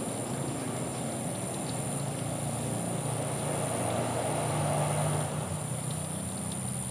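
Steady motor hum with a constant high whine above it, swelling for a moment about four to five seconds in.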